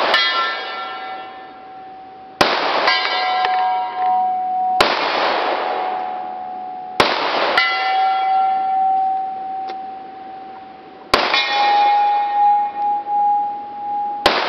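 About six .45 ACP shots from a 1911 A1 pistol, a couple of seconds apart. Most are followed a moment later by a long ringing tone from a steel target being hit at 100 yards.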